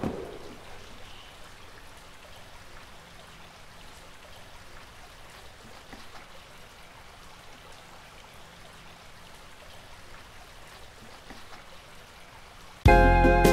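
Faint, steady running water of a small stream. Near the end, music cuts in suddenly and much louder.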